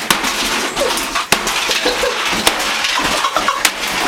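Hammer blows on a microwave oven: four sharp impacts, a little over a second apart, over a steady background of clatter and noise.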